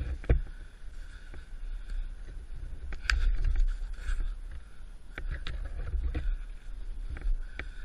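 Low wind rumble on the microphone with a two-stroke enduro bike's engine droning in the background, swelling about three seconds in, and scattered sharp clicks and knocks.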